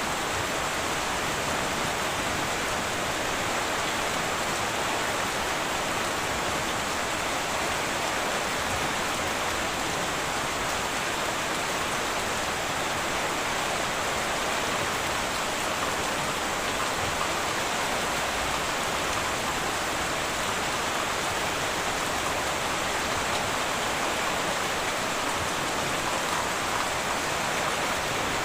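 Heavy rain drumming steadily on a tin roof, an even hiss that holds level throughout.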